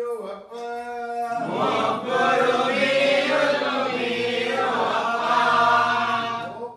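Devotional group chanting: a single male voice leads briefly, then about a second and a half in a group of men joins in a loud unison chant that holds for several seconds and drops away near the end.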